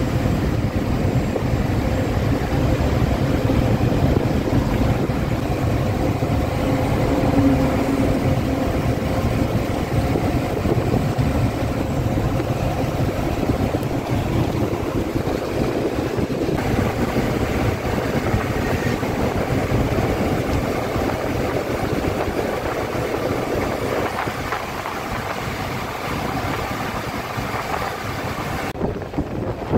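BharatBenz bus running along a highway, heard from inside the driver's cabin: a steady engine drone and road rumble.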